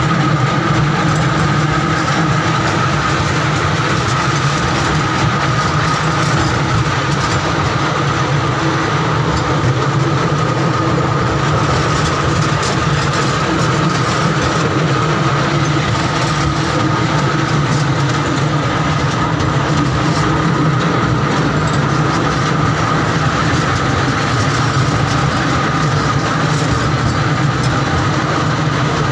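Amusement-park mini train running steadily along its track, heard from aboard: a constant machine and wheel noise with a steady high whine through it.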